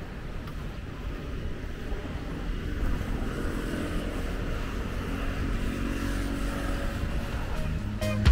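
Road traffic and motor vehicle engine noise, a steady rumble that grows a little louder partway through. A guitar-led music track comes in near the end.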